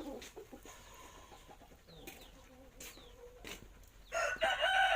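A rooster crowing once, loud, starting about four seconds in; before it only faint short chirps and small noises.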